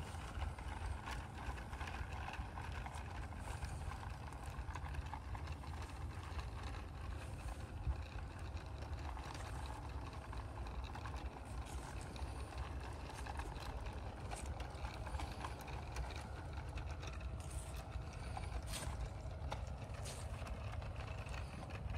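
Large-scale model diesel locomotive and its four wagons rolling slowly along garden-railway track: a steady running rumble of wheels on the rails, broken by frequent irregular clicks as the wheels pass over rail joints.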